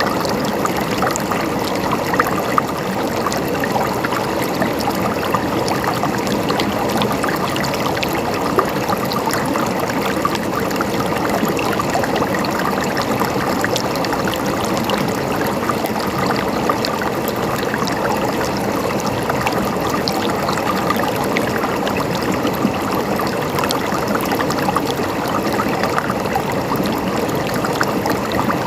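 River water flowing steadily: a continuous, even rush with many small splashes and trickles through it.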